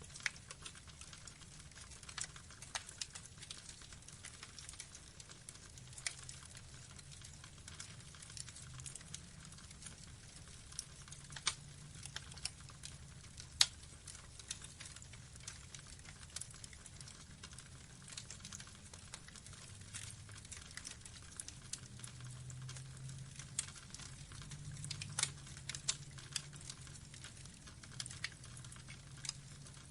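Burning log fire crackling: irregular sharp snaps and pops over a steady low rumble, with one much louder pop a little before halfway.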